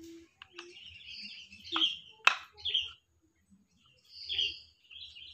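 Small birds chirping in short, scattered calls, with a couple of sharp plastic clicks from the blender cup base and blade assembly being handled; the loudest click comes a little over two seconds in.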